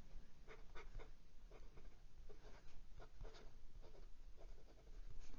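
Fine steel nib of a Hong Dian 920 fountain pen writing on Clairefontaine 90 gsm paper: a faint, irregular series of short strokes as the letters are formed.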